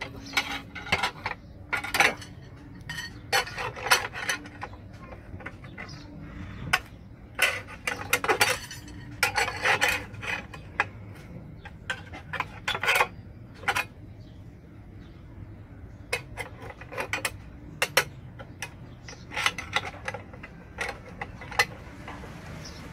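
Steel wire rod and a steel bending bar clinking and scraping against a homemade angle-iron bender as rebar stirrups are bent by hand. The sound is irregular clusters of sharp metallic clicks and clinks, with a few longer scrapes.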